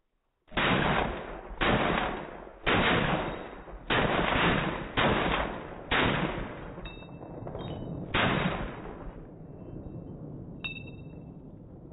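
Seven single rifle shots from an AK-47 and an AR-15 fired side by side, about one a second with a longer pause before the last, each trailing off in an echo. A few short metallic pings follow near the end.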